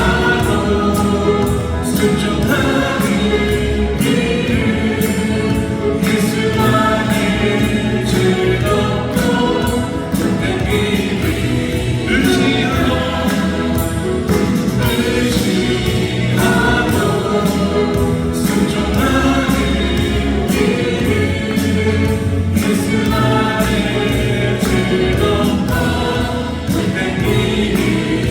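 Music: a choir singing with instrumental accompaniment, in a gospel style.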